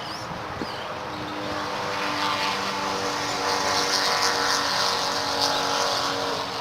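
An engine running with a steady pitch, growing louder from about a second and a half in and staying loud, as a motor passes close by.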